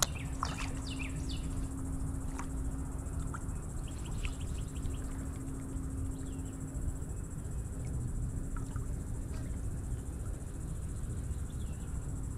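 Steady, high insect chorus, with short bird chirps scattered through it. Underneath runs a low steady hum that stops a little past halfway.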